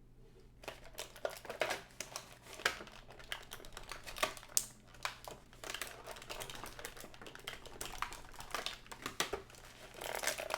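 Plastic and cardboard toy packaging being handled and opened: irregular crinkling and sharp clicking, with a louder rustle near the end.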